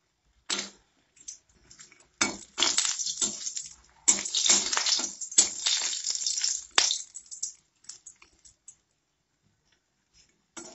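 Flat metal spatula scraping and knocking against a kadai (wok) while turning bori, sun-dried lentil dumplings, frying in a little oil. The irregular scrapes and clinks come thickest through the first seven seconds, then thin out to a few light taps.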